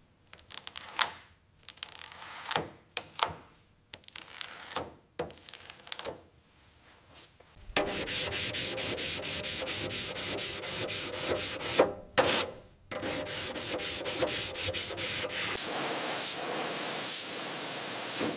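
Hand sanding: a few separate rubbing strokes at first, then from about eight seconds in a steady rasp of fast back-and-forth strokes, about five a second.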